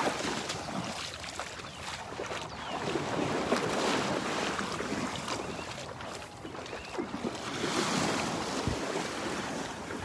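Gulf of Mexico surf washing onto the beach, swelling and fading three times, a few seconds apart, with wind buffeting the microphone.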